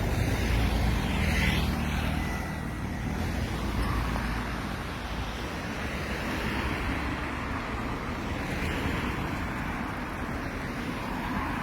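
Mini tourist road train running along a street, heard from on board: a steady low engine hum with road and traffic noise. The hum is stronger for the first half, then eases into a more even rumble of tyres and passing traffic.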